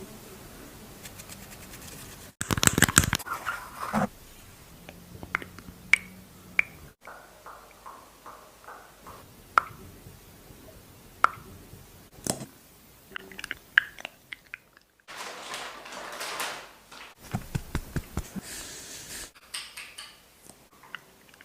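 Makeup items handled close to the microphone: a series of sharp clicks and taps with stretches of rustling, in short clips joined by abrupt cuts.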